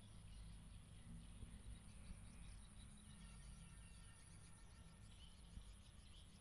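Near silence: faint outdoor ambience, with a steady high insect buzz and a few faint bird chirps about halfway through, over a low rumble.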